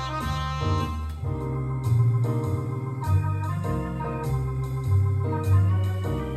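Keyboard-like synthesizer notes from an iPad, triggered by an ultrasonic-sensor MIDI controller, stepping through a blues scale with a new note every half second or so over a sustained bass line.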